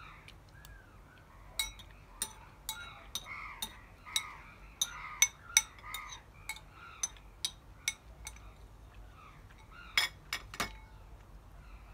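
Spoon clinking and scraping against a bowl while scooping up food: a string of sharp clinks from about a second and a half in, the loudest around five seconds and again near ten seconds. Behind it an animal call repeats about twice a second.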